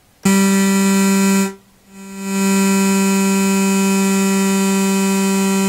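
Doepfer MS-404 analog synthesizer module sounding a bright, buzzy sustained note, played from a MIDI controller keyboard. The note starts sharply and holds for about a second, then stops. The same pitch then swells back in over about half a second and is held steady. The module is being test-played after repair of earthquake damage.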